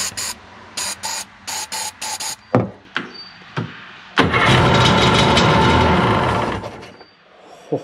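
Aerosol brake cleaner hissing in several short sprays into the carburettor intake, used as starting fluid. About four seconds in, the 1991 Sea-Doo SP's Rotax two-stroke twin is cranked over for about two and a half seconds, then dies away.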